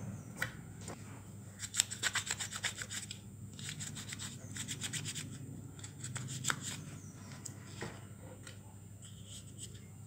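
A cloth rubbing and scrubbing against the hard plastic of a toy car remote's battery compartment as it is wiped clean, with a quick run of scratchy strokes about two seconds in.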